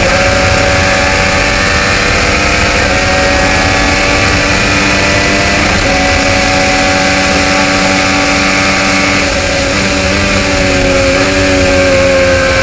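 IndyCar's 2.2-litre twin-turbocharged V6, heard from the car's onboard camera, held at steady high revs with only slight dips in pitch now and then, over a haze of wind and tyre noise.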